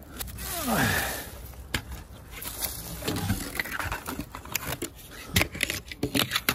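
Dry leaf litter and twigs rustling and crackling underfoot and under hand as firewood is gathered, with many sharp snaps. About a second in there is a short falling vocal grunt.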